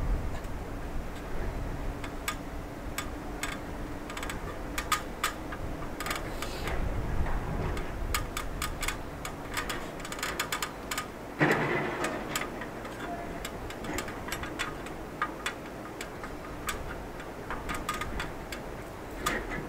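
Irregular light metallic clicks and taps from a man climbing down an aluminium ladder propped against a steel shipping container, with a louder clatter about eleven seconds in.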